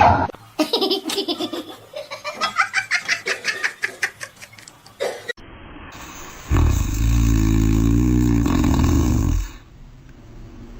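Laughter in rapid rhythmic bursts for about five seconds. After a sudden cut, a loud, low, wavering drone runs for about three seconds and then stops.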